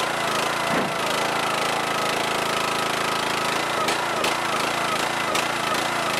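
Small gas engine of a YardMax hydraulic log splitter running steadily, with a few light knocks.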